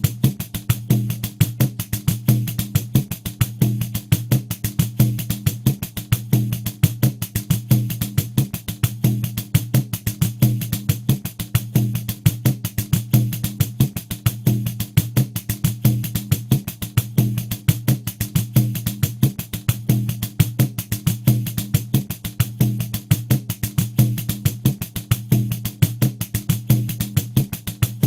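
Pandeiro playing a steady, even groove at 90 beats per minute: dense strokes with bright jingles over the low thump of the drumhead, without a break.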